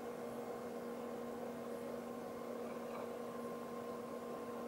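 Steady electrical hum over faint hiss: room tone with no other clear sound.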